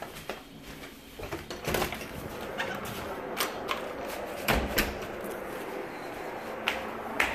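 Irregular knocks, thumps and footsteps with camera-handling noise as the camera is carried out and onto a stairway, over a steady background hiss that gets louder about two seconds in. The loudest is a low thump about four and a half seconds in.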